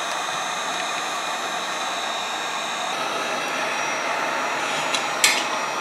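Electric heat gun running steadily: the rush of its blower with a faint steady whine on top, heating a MOSFET on a circuit board to melt its solder. One short sharp click about five seconds in.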